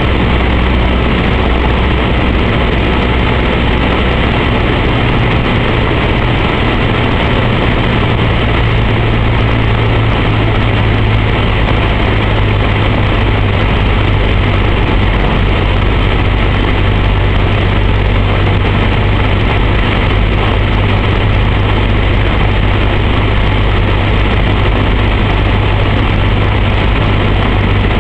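Cessna 152's four-cylinder Lycoming engine and propeller droning steadily, heard from inside the cockpit during the landing approach. The low engine note shifts slightly several seconds in.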